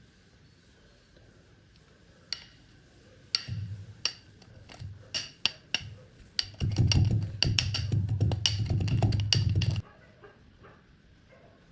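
Knife chopping kinetic sand, the blade knocking the surface beneath: a few scattered strikes, then a fast run of chops for about three seconds that stops suddenly.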